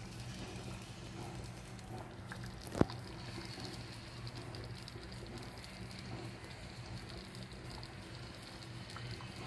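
Thick rice congee with pork offal bubbling in a stainless steel pot, a steady pattering of small pops over a low hum. One sharp click about three seconds in.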